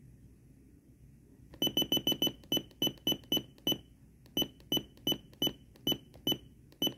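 Sony WM-FS222 Sport Walkman radio beeping with each press of its tuning button: a run of about seventeen short, high beeps, several a second at first and then slower, as the FM frequency steps down.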